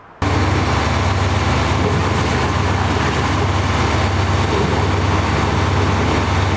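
KAMAZ vacuum sewer-cleaning truck running its diesel engine and pump while a hose works the drain: a steady low drone under an even rushing noise. It begins abruptly just after the start and holds level throughout.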